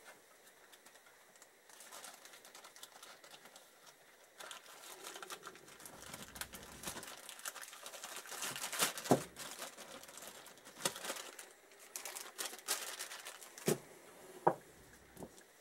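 Clear plastic parts bag being handled and crinkled, with a few sharp clicks of small metal parts set down on a workbench.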